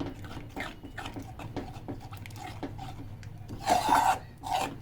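A spoon scraping and stirring in a pan of besan and milk as the mixture thickens, in short repeated strokes two or three a second, with a louder scrape a little under four seconds in.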